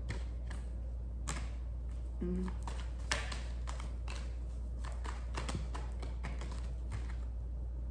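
A tarot deck being shuffled overhand by hand: irregular soft slaps and flicks of cards against each other, a few louder than the rest.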